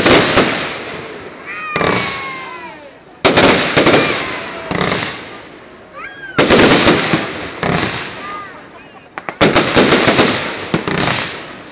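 Aerial fireworks display: a loud shell burst every two to three seconds, about five in all. Each bang is followed by a long fading rumble and crackle.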